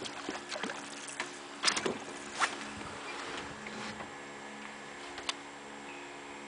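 Steady hum of a bow-mounted electric trolling motor, with a few sharp knocks or clicks, the loudest two about two seconds in and another near the end.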